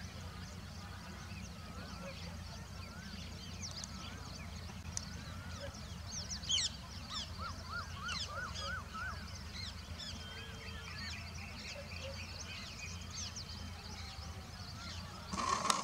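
Several wild birds chirping and calling, with short sweeping notes and a run of about six arched notes in the middle, over a steady low hum. A brief louder noise comes near the end.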